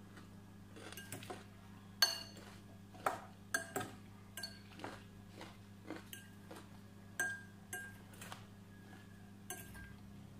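Metal fork clinking against a glass salad bowl as it picks and stirs through the salad: about fifteen irregular clinks, each with a short ring, the loudest about two seconds in. A low steady hum runs underneath.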